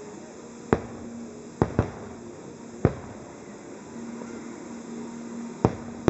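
Aerial fireworks shells bursting: five sharp bangs, spaced irregularly, two of them in quick succession near the middle of the first two seconds.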